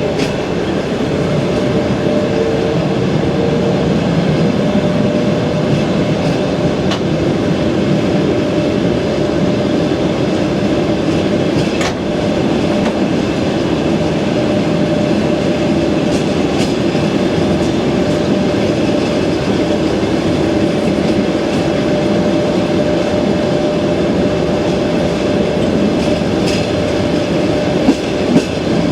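Long-distance passenger train running on jointed rail track, heard from inside the carriage: wheels clattering over the rail joints over a steady running rumble with a faint steady hum. There are a couple of sharper knocks near the end.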